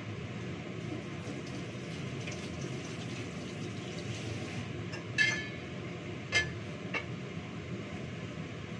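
Kitchenware clinking three times in a few seconds, metal or ceramic struck sharply, the first clink the loudest and ringing briefly, over a steady low background noise.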